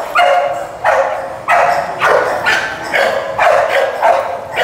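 A dog barking loudly and over and over, about two barks a second.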